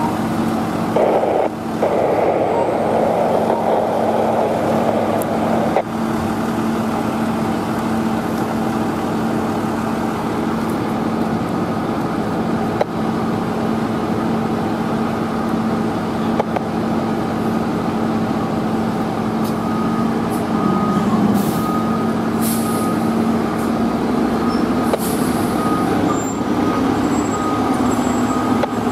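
Fire truck diesel engines running steadily, loudest for the first few seconds as the engine pulls through the intersection. About two-thirds of the way in, a truck's reversing alarm starts beeping repeatedly over the engine noise, with a few short air-brake hisses.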